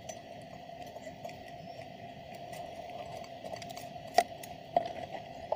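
Copper magnet wire being pulled by hand off a toroidal transformer core: faint rustling with a few sharp metallic clicks near the end, over a steady background hum.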